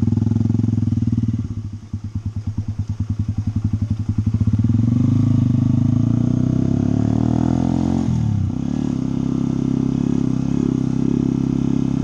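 Motorcycle engine running under way. From about two to four seconds in it drops to low revs with its separate exhaust beats audible. It then rises in pitch as it accelerates, falls sharply at an upshift about eight seconds in, and runs steady after that.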